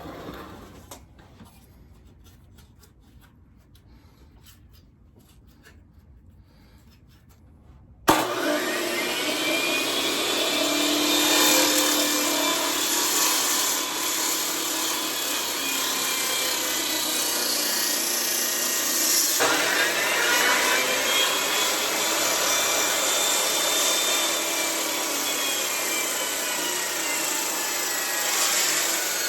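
A few light handling clicks, then about eight seconds in a Makita beam saw, a giant circular saw, starts abruptly and runs loud and steady while cutting wood. Its whine rises and settles as the blade comes up to speed and shifts again about two-thirds of the way through.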